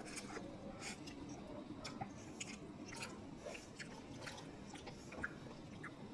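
A person chewing instant noodles close to the microphone: faint, irregular little mouth clicks and smacks.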